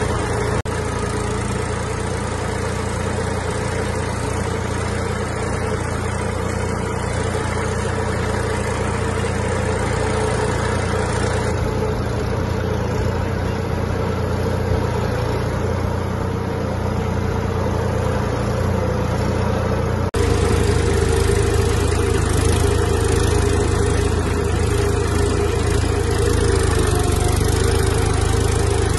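Massey Ferguson 245's three-cylinder diesel engine running steadily as the tractor pulls a seed drill. About two-thirds of the way through, the sound cuts abruptly and comes back a little louder.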